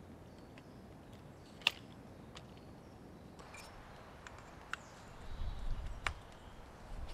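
Metal frame of a folding camp chair being unfolded by hand, its joints clicking and knocking as they snap into place. The sharpest click comes a little under two seconds in, and a low rumble rises around five seconds in.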